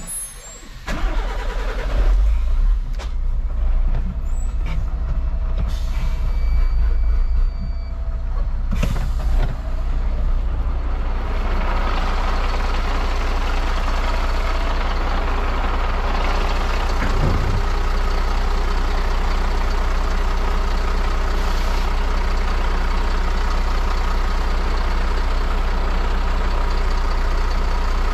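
MAN truck's diesel engine starting about a second in, running unevenly with a few sharp knocks for the first several seconds, then settling into a steady idle.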